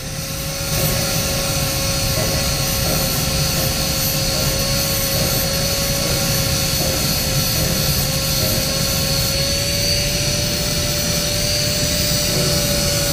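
Handheld angle grinder running at a steady whine, its disc grinding down the handle of a metal spoon to thin it. The grinding hiss grows louder about a second in as the disc bites into the metal.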